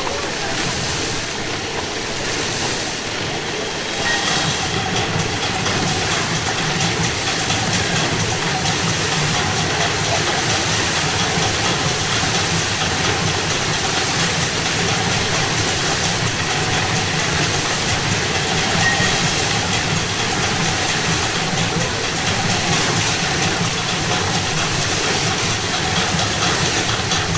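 Fountain water jets spraying and splashing in a steady rushing hiss, stepping up louder about four seconds in.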